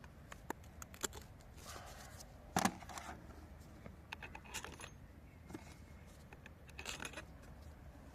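Small metal objects clinking and tapping as they are handled, in scattered light clicks, with the loudest knock about two and a half seconds in and a short cluster of clinks near the end.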